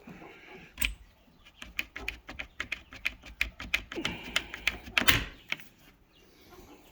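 A quick, irregular run of sharp clicks and taps, several a second, with a louder knock about a second in and another about five seconds in.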